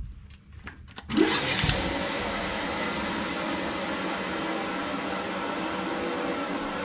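A single knock, then about a second in an electric motor-driven blower switches on: its pitch rises briefly as it spins up, then it runs steadily with a loud rush of air.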